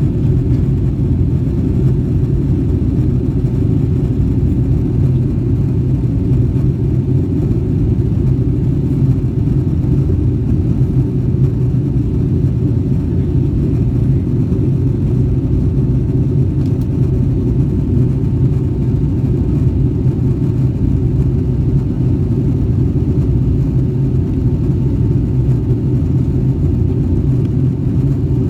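Steady, loud cabin rumble of a Boeing 757-200, its engines and airflow heard from inside the passenger cabin, with no change in pitch or level.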